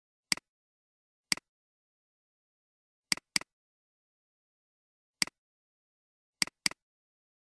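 Computer mouse clicks in dead silence: seven sharp, identical clicks, three single and two quick double-clicks about a quarter second apart.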